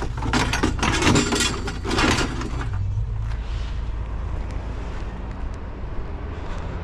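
Metal chairs clattering and knocking as they are shoved into the back of a van, the sharp knocks ending about three seconds in. Under it the van's engine runs with a steady low hum.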